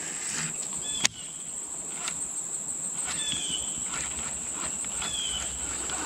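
Steady high-pitched drone of insects, with one sharp knock about a second in.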